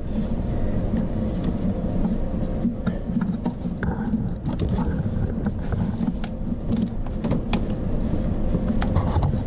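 A steady low mechanical rumble, with scattered light clicks and knocks of a socket wrench on a long extension being strained against a tight starter bolt.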